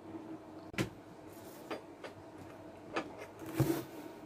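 A few separate light knocks and clicks of plastic food containers being handled on a table, the heaviest knock near the end, over a faint steady hum.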